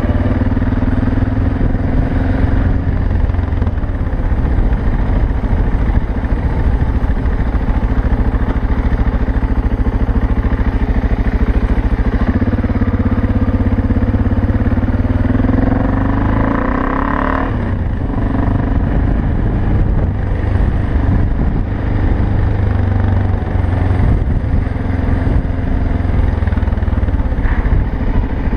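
BMW 650 GS single-cylinder motorcycle engine running steadily under way. About halfway through, the engine pitch rises, then drops off suddenly.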